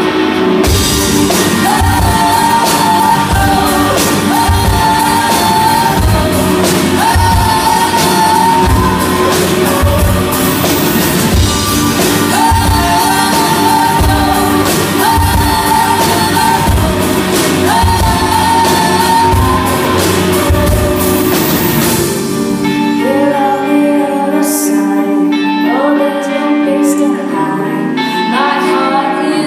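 Live pop-rock band with a female lead vocalist, amplified in a theatre: a steady drum beat under a repeating melodic figure, with the drums dropping out about three quarters of the way through, leaving sustained keyboard chords and the voice.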